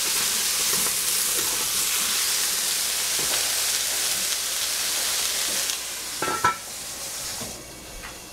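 Eggplant sizzling in a stainless steel pot just after water and soy sauce go in, with a spoon stirring through it. About six seconds in, a metal clank with a brief ring as the stainless lid goes on, and the sizzling turns much quieter.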